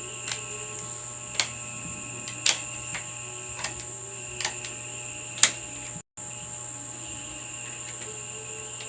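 About six sharp clicks and taps, roughly one a second, from small parts and tools being handled on the TV's backlight assembly, over a steady faint electrical hum and high whine.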